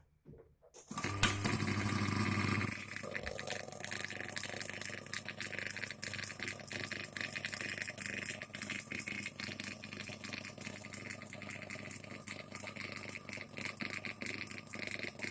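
Washing machine spin dryer switched on about a second in: its motor starts with a loud hum, then the drum keeps spinning steadily with a fast, dense rattle.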